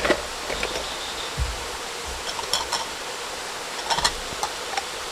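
Steady rush of running water from the springs' stream, with a few light clicks and knocks scattered through it.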